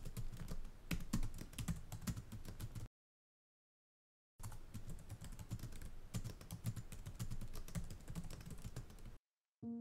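Rapid keyboard typing, a quick stream of key clicks. It stops dead for about a second and a half after roughly three seconds, resumes, and cuts off just before the end.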